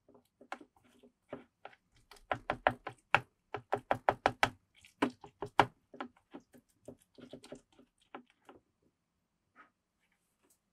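A rapid run of light, sharp knocks, several a second. They are densest and loudest in the middle and thin out toward the end.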